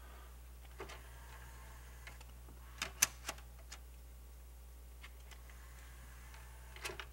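Short clicks and light knocks from a disc player's tray as a CD is set into it and the tray slides shut, the loudest click about three seconds in and a few more near the end, over a faint steady low hum.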